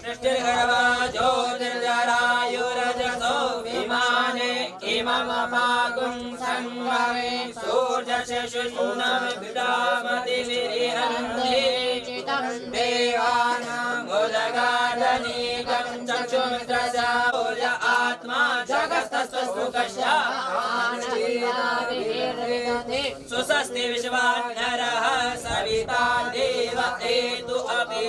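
Hindu devotional mantra chanting: voices chant continuously over a steady held low tone.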